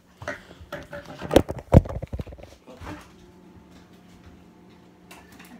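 A phone being handled and knocked about: a run of clicks and bumps with two loud thumps about a second and a half in. These give way after about three seconds to the steady hum of a spinning ceiling fan.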